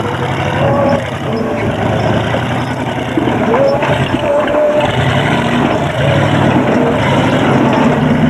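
Engine of a GAZ-69-based offroad trial vehicle running under load as it climbs over rocks. The engine note thins briefly about halfway, then comes back.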